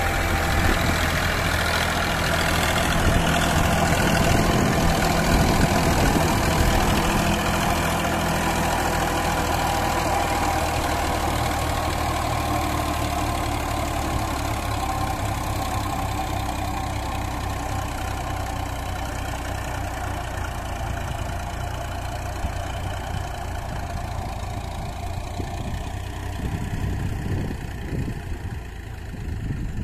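Sonalika tractor's diesel engine running steadily. It is loudest a few seconds in, then slowly grows fainter.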